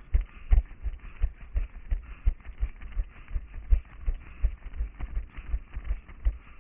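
Running footsteps on pavement picked up by a head-mounted GoPro: dull, regular thumps about three a second over a faint steady hiss.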